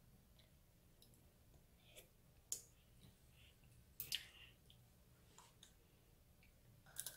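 A few faint, separate clicks and taps, sharpest about two and a half seconds in, around four seconds in and near the end, from sugar-glazed tanghulu skewers being handled on a plate.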